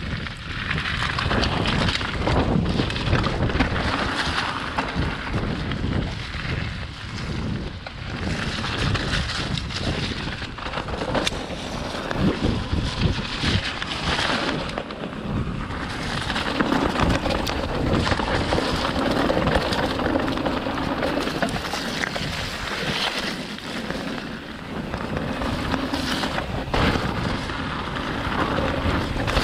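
Mountain bike running down a rough, rocky dirt trail: tyres crunching over gravel and stones with constant rattling and knocking from the bike over the bumps, mixed with wind rushing over the camera microphone.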